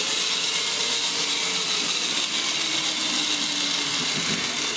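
1960s wind-up spark robot walking on its paddle feet, its spring motor running with a steady whirring hiss. The sparking mechanism, which governs how fast the spring unwinds, is throwing sparks.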